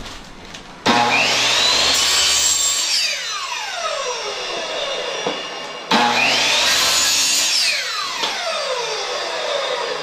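Ryobi miter saw switched on twice: each time the motor starts abruptly and its whine climbs as the blade spins up while it cuts through PVC pipe, then falls away slowly as the blade coasts down after the trigger is released.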